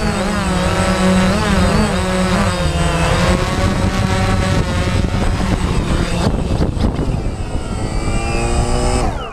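DJI Phantom quadcopter's electric motors and propellers whirring, heard from on board, with several pitches weaving up and down as the drone descends and settles onto the pavement. Near the end the pitches fall away together as the motors spin down.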